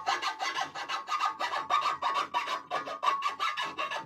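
Steel chaff cutter blade being sharpened by hand with rapid back-and-forth scraping strokes, about four or five a second: a steady rasping.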